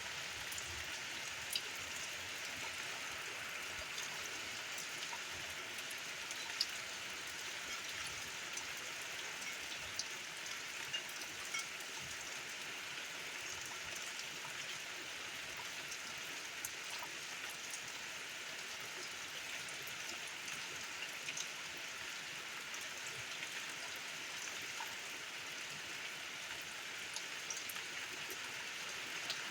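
Steady rain falling, a soft even hiss with scattered single drops pattering on surfaces.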